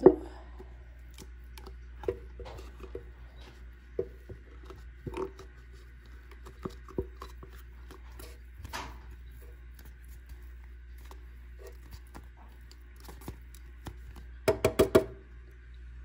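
Condensed milk being poured from its carton into a stainless-steel blender jar of eggs: a low steady hum with scattered soft taps and clicks from handling the carton and jar, and a quick run of louder clicks near the end.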